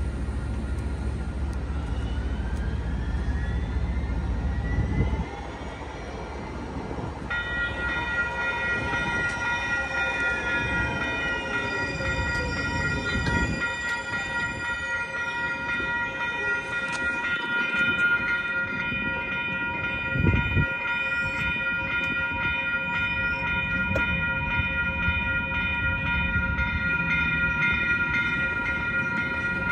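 Railroad crossing bells start ringing about seven seconds in and keep ringing steadily, the warning that a train is approaching the crossing. A low rumble of traffic comes before them and stops after about five seconds.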